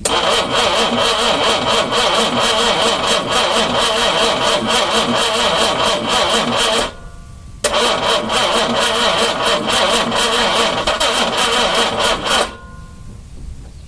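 Starter motor cranking a 4.2-litre engine on a start attempt, its carburetors primed with a spritz of gas. It cranks in two long bursts, about seven and five seconds, with a short pause between.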